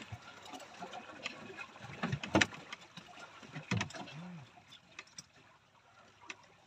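Small wooden boat at sea, with water lapping at the hull and scattered light knocks and clicks on board, growing quieter in the second half.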